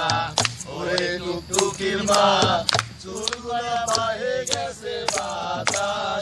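Men singing a song to a strummed acoustic guitar, with sharp strums coming at a steady beat under the voices.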